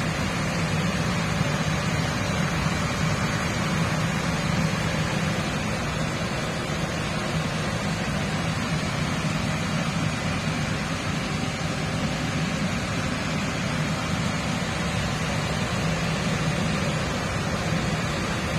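Chicken-feet adobo simmering down in a pan over the stove, a steady hiss and bubble as the sauce is reduced until nearly dry.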